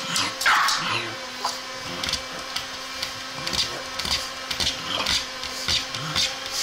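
A pug pawing and scratching at the wooden side of a bed, making short scratchy noises about twice a second with soft low thuds, over a steady low hum.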